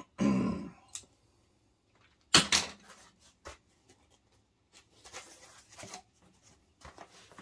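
Cardboard shipping box and foam packing being handled and opened: scattered rustles, clicks and knocks, the loudest a sharp knock about two and a half seconds in.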